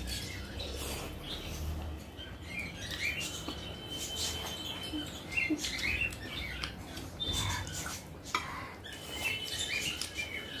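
Eating sounds: chewing and small wet mouth clicks of a person eating a meal of rice, dal and chicken curry, repeated many times. Short high chirps recur behind it, like small birds calling.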